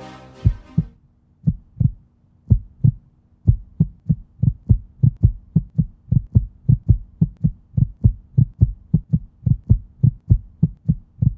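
Heartbeat sound effect: low thumps in pairs, about one beat a second at first, quickening to several a second from about four seconds in, over a faint steady hum. The closing song fades out in the first second.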